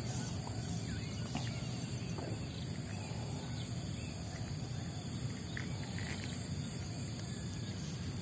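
Rural outdoor ambience: a steady high-pitched insect drone with a few faint bird chirps.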